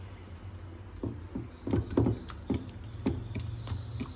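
Wet squelching of a hand working a thick yogurt marinade into chicken leg pieces in a glass dish: a string of short, irregular squishes over a steady low hum. A faint high-pitched sound comes in about halfway through.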